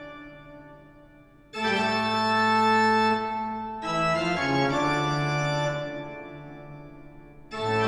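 Organ music: held chords, each starting suddenly and fading slowly away. A new chord comes in three times.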